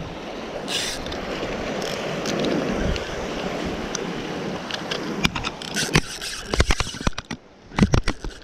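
Wind buffeting the microphone over water noise. From about five seconds in there is a run of sharp, irregular clicks and knocks as the spinning reel is handled close to the microphone.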